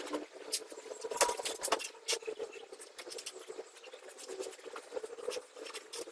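Irregular light tapping, clicking and scratching of hand work on craft materials, with a faint steady hum underneath.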